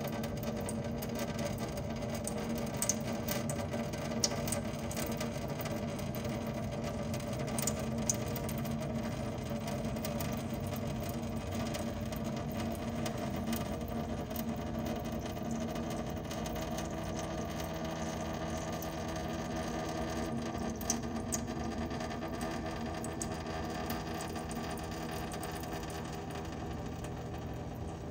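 Thin streams of water from drain tubes trickling steadily into a stainless steel sink over a steady low hum, with a few sharp ticks.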